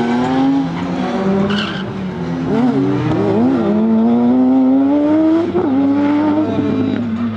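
Suzuki hatchback with a ZX-12R motorcycle engine racing through slalom bends at high revs. The engine note climbs, dips as the throttle is lifted, then climbs long before dropping sharply, with a brief tyre squeal about a second and a half in.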